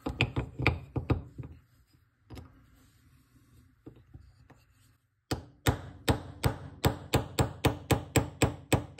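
Hammer tapping a steel roll pin punch to drive out the roll pin that retains the firing pin in a Ruger 10/22 bolt held in a bench block. A quick run of taps, a pause of a few seconds, then steady taps about four a second.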